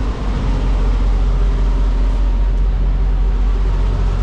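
Diesel engine idling with a steady low rumble.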